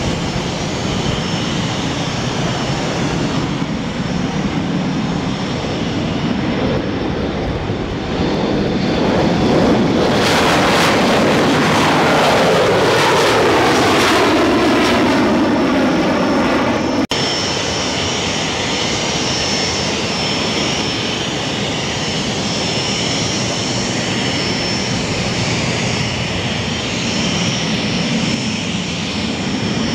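Airplane engines: a passing aircraft swells louder about ten seconds in, with falling, sweeping tones as it goes by. About seventeen seconds in the sound breaks off abruptly into steadier engine noise with a thin high whine.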